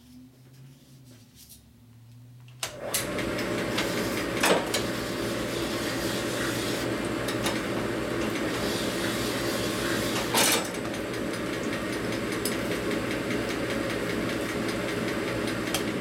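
A machine-shop tool's motor and spindle start about three seconds in and run steadily, with a hum and a continuous grinding hiss as a burred piece of metal tubing is worked on the spinning tool to clean it up. Two sharp knocks come in along the way.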